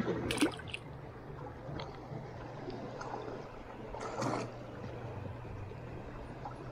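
Shallow seawater lapping and trickling around rocks at the water's edge, with a few short splashy clicks in the first second.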